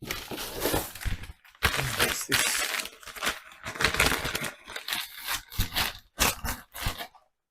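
Cardboard packaging being pulled out and handled, crinkling and scraping in irregular bursts with short pauses, stopping about seven seconds in.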